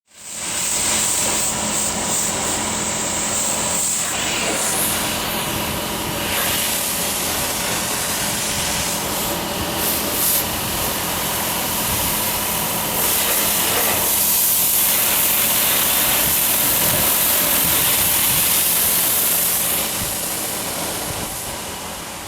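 Boat under way: a steady rushing of wind and water spray over a low engine hum. It starts abruptly and fades near the end.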